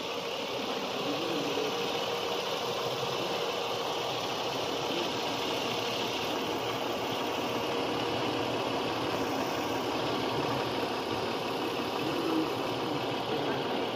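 Lexus RX300's 3.0-litre V6 engine idling steadily, heard up close in the open engine bay, with a faint steady whine over it.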